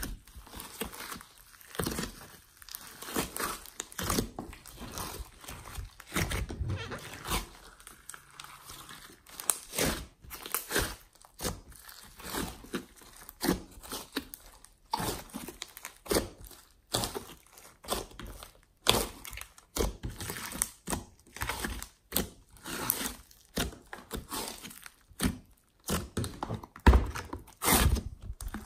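Hands squeezing and kneading a large mass of glossy slime mixed with clay and glitter: irregular sticky squishes with many short clicks and crackles. The loudest snaps come near the end as the slime is lifted out of its tray.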